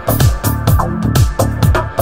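Background electronic dance music with a fast, steady kick-drum beat.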